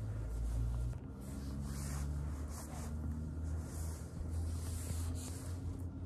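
Black cat's fur brushing over the microphone as the cat rubs past the camera: soft repeated swishing over a low rumble.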